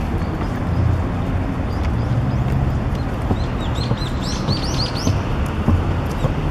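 A bird gives a quick run of about ten short, high chirps, starting about three seconds in, over a steady low rumble.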